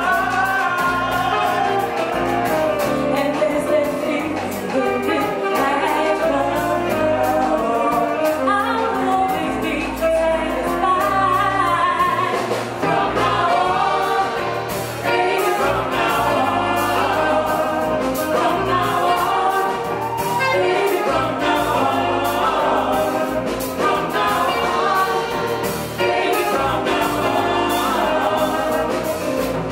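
A woman singing a song live with a small band of keyboard, bass guitar and drum kit, with cymbals ticking steadily over a walking bass line.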